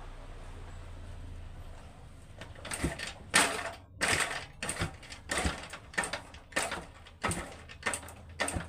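A low steady hum fades out about two seconds in. Then comes a run of about ten short rasping strokes, roughly one every 0.6 seconds, from hand-tool work on a motorcycle's ignition coil.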